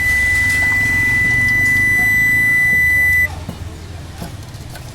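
A steady, high-pitched electronic beep, one continuous tone that cuts off suddenly about three seconds in, followed by faint clicks.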